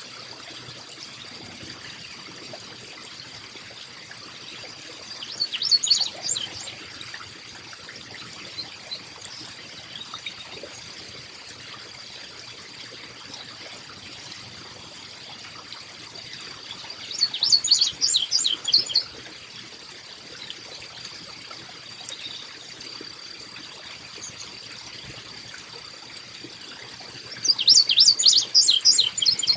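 Carolina chickadee calling three times, each call a quick run of high notes lasting one to two seconds. Underneath is a steady trickle of water and a thin, high, steady whine.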